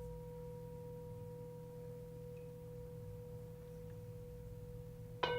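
Tibetan singing bowl ringing with a steady, pure tone, struck again near the end to give a fresh, louder ring with several higher overtones.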